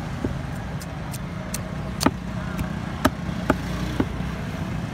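Four sharp knocks of a knife on a wooden chopping block as a fish is handled for cleaning, about two, three, three and a half and four seconds in, over a steady low hum like distant traffic.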